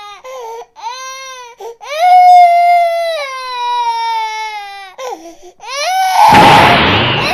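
A baby crying in a series of long, falling wails with short breaks between them. About six seconds in, a loud rushing burst of noise comes in over the cry.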